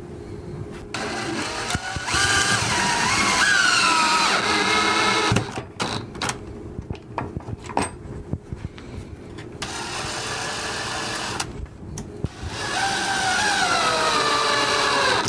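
Cordless drill driving wood screws into a wall stud: two long runs, one starting about a second in and the other about ten seconds in, the motor's pitch sagging as each screw tightens. Clicks and knocks of handling come between the runs.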